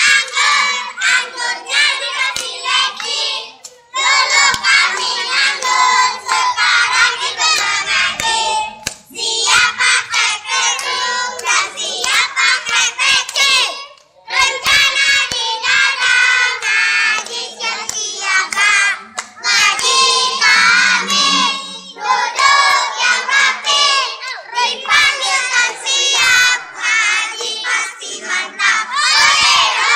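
A group of young children singing a song together at full voice, with hand claps among the singing.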